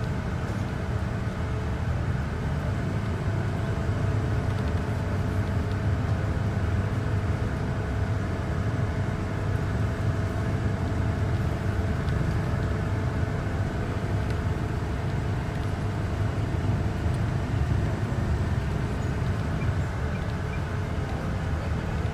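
Steady low rumble of a car driving, heard from inside the cabin: engine and tyre noise on the road, with a faint steady hum above it.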